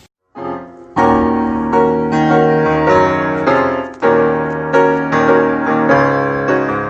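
Outro music played on piano or electric keyboard: a quiet opening chord, then from about a second in a run of loud, sustained piano chords and notes.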